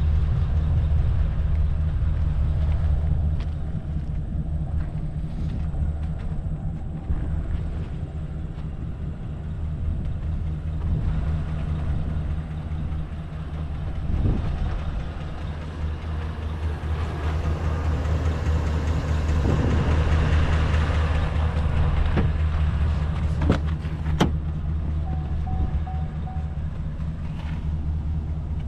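Chevrolet 2500 HD pickup truck's engine idling steadily with a low, even hum, and a couple of sharp clicks near the end.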